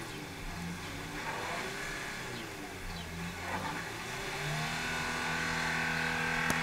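Renault Kangoo van's engine revving in surges as the van tries to pull out of mud, its wheels spinning. About two-thirds of the way in, the revs rise and are held, louder and steady.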